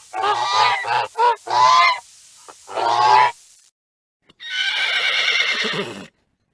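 Domestic goose honking, about five loud calls in quick succession. After a sudden cut and a short silence, a horse whinnies once, the call sliding down at the end.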